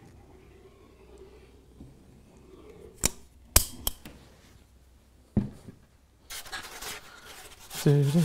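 A few sharp clicks from a caulking gun about three seconds in, then a single knock as it is put down. Near the end a rubbing starts, then a fast run of squeaks as a slab of foam insulation board is pushed onto the baseboard.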